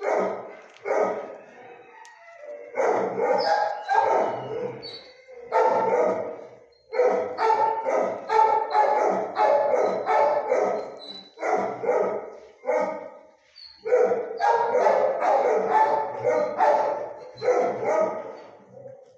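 Dogs barking in a shelter kennel block, bark after bark, often overlapping, with a few short lulls.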